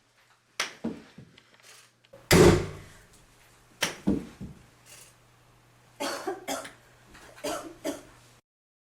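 A woman coughing repeatedly in short clusters, the loudest cough a little over two seconds in, from breathing in thick flash pot smoke. The sound cuts off abruptly near the end.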